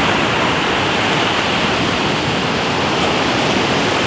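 Ocean surf breaking close by at the water's edge: a loud, steady rush of noise.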